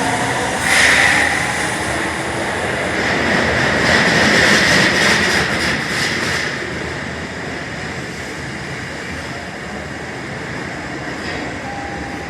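Osaka Metro Tanimachi Line subway train noise. A brief high burst about a second in, then a louder stretch of wheel and track clatter that swells and dies away after a few seconds, settling to a steady rumble. A short steady tone sounds near the end.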